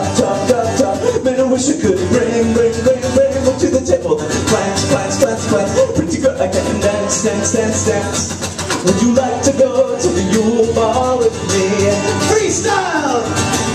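Live band music with guitar and singing, recorded from within the crowd, with the audience clapping along to the beat.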